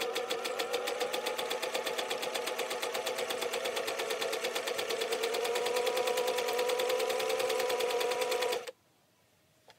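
Singer 500A slant-needle sewing machine stitching a flat felled seam: the motor hums under a fast, even run of needle-and-feed clicks, then it stops abruptly near the end.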